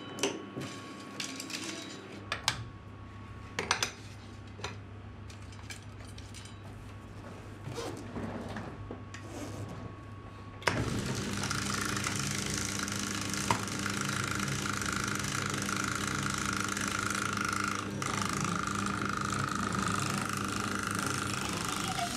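Light clicks and knocks of reels and controls being handled on a flatbed film editing table. About halfway through, the table's motors start with a sudden jump in level and run steadily with a hum and a hiss as the film winds from plate to plate.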